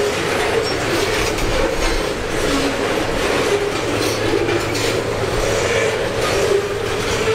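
Freight train rolling past at speed, its wheels clacking over rail joints, with a wavering squeal from the wheels over a steady rumble.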